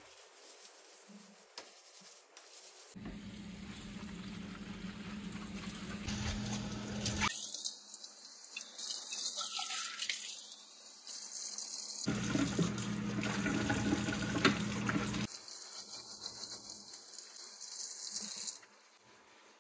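Water running from a tap into a kitchen sink, splashing steadily; it stops suddenly near the end.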